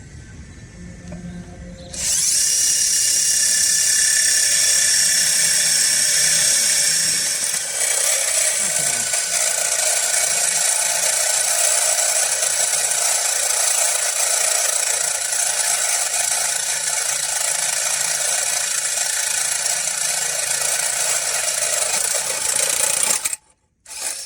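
A power drill bit grinding into a hard surface with a steady, high-pitched, hissing whine. It starts about two seconds in, falters briefly, runs on, then cuts off suddenly near the end, followed by two short bursts as the trigger is tapped.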